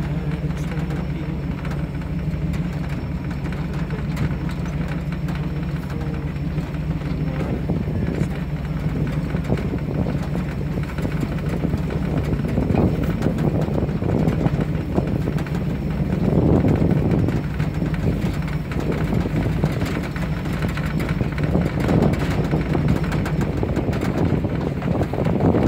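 Vehicle driving slowly off-road through grass and brush: a steady low engine drone with rattles and knocks from the rough ground, louder and rougher in the second half.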